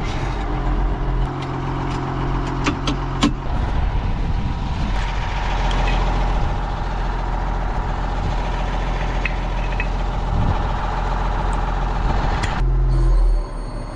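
A tractor engine running steadily while working in the field, with a few sharp clicks or rattles about three seconds in. The sound changes abruptly shortly before the end.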